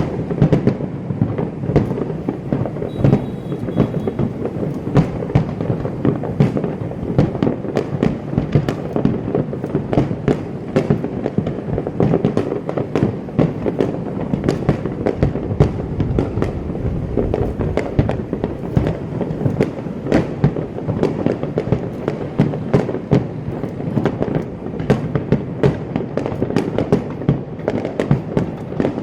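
Aerial fireworks going off in a dense, unbroken barrage: many sharp bangs a second over a continuous rumble of bursts.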